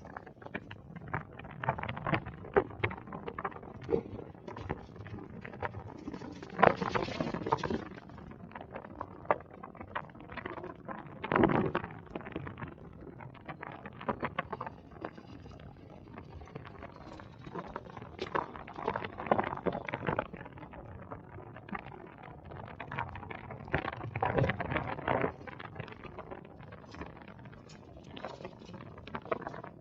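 Wind buffeting a camera microphone while travelling: an irregular rumble broken by many sharp crackles and gusty surges.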